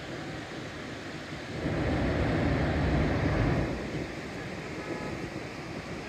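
Pacific surf breaking and washing on the beach, a steady rush with one louder, deeper surge from about a second and a half in until nearly four seconds in.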